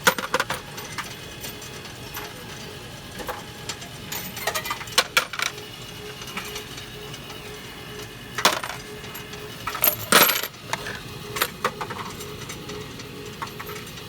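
Loose metal-detecting coins clinking and dropping against one another in scattered short clinks, the loudest cluster about ten seconds in.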